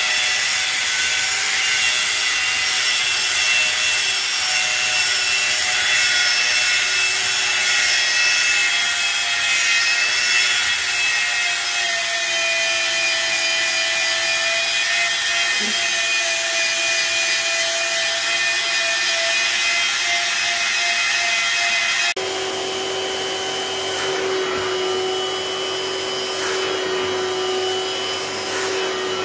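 Handheld electric rotary brush machine scrubbing sofa upholstery: a steady motor whine over the brush rubbing on the fabric. About two-thirds of the way through it cuts abruptly to the steadier, lower hum of a vacuum drawing the cleaning water back out of the fabric.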